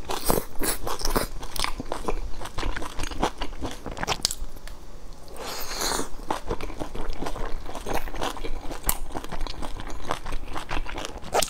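Close-miked eating of large pan-fried buns: steady chewing with frequent bites and crisp crunches of the browned dough.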